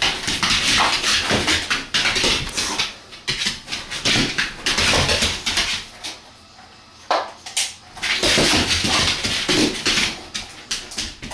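Boxer dog scrambling after a laser dot, her claws and paws scrabbling, skidding and thumping on the floor in quick spells, with a lull about six seconds in.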